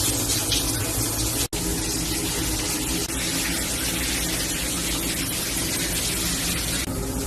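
Steady rush of running water, broken by a brief drop-out about a second and a half in.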